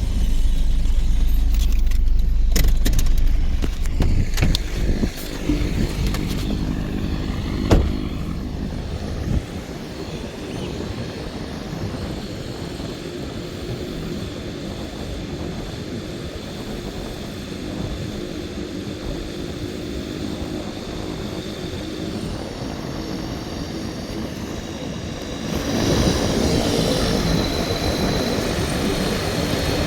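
Small microlight aircraft's propeller engine running as it takes off, with a steady drone that gets clearly louder near the end.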